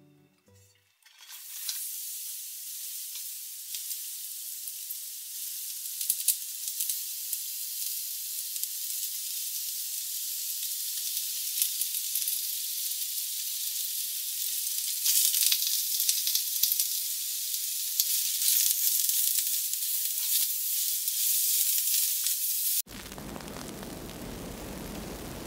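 Shimeji and maitake mushrooms sizzling in a hot frying pan on a gas burner, starting about a second and a half in, with scattered clicks and clatter as they are dropped in and tossed. Near the end the sizzle gives way abruptly to a duller, broader rushing noise.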